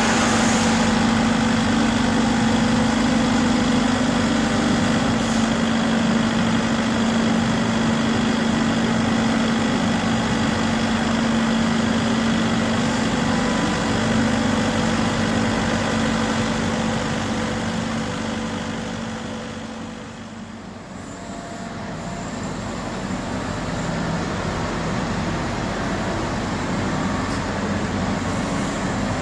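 Volvo ECR58D compact excavator's diesel engine running steadily, fading down briefly about two-thirds of the way through and then picking up again.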